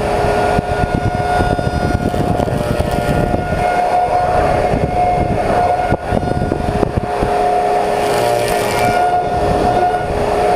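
Slab surfacing machine's cutter head with six insert knives running and planing a willow slab: a steady whine over a rough cutting noise.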